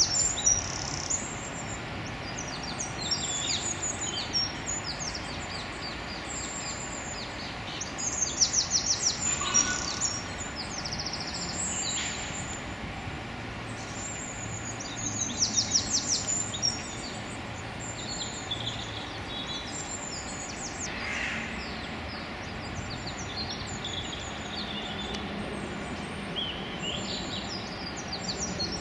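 Small songbirds singing in short bursts of rapid, high-pitched trills every few seconds, over steady background noise.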